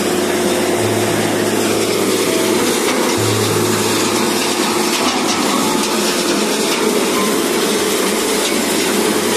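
Diamond processing plant in operation, a trommel screen and jig: a loud, steady noise of running machinery and slurry water pouring over the screens.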